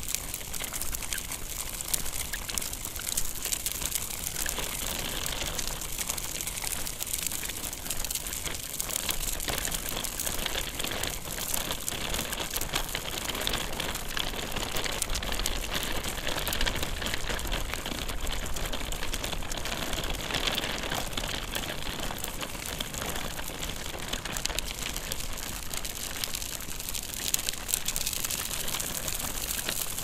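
Stroller wheels rolling steadily along the ground: a continuous gritty crackle made of many fine clicks, with a low rumble underneath.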